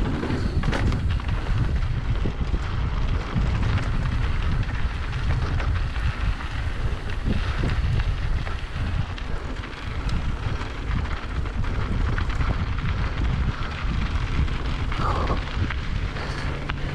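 Wind buffeting the microphone in a steady low rumble while a mountain bike is ridden along.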